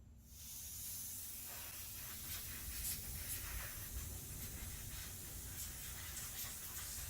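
Compressed air hissing out of a leak at a scuba regulator on a pressurised tank, starting abruptly and running on with an irregular sputter.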